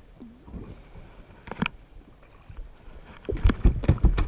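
A quick run of sharp knocks and heavy thumps against a fishing boat, starting about three seconds in, over a low rumble of wind on the microphone.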